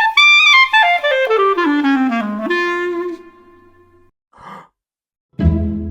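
Clarinet playing a slow run that steps down note by note, then settles on a held note that fades out, the tone clean with no squeaks. A short breath follows, and music starts near the end.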